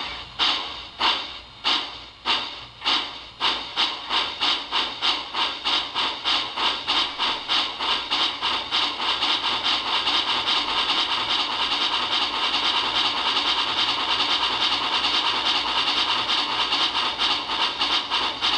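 Model steam locomotive's sound system chuffing as it runs on rollers: steam chuffs start at about two a second and speed up steadily until, about halfway through, they blur into an almost continuous hiss.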